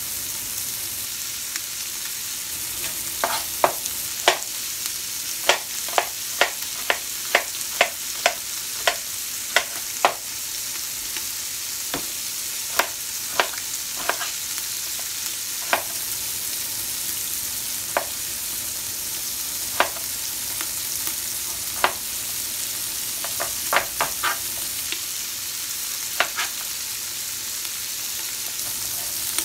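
Chef's knife chopping onion on a plastic cutting board: sharp knocks in a quick run for several seconds, then spaced out. Under them, the steady sizzle of sausage meat browning in a pot.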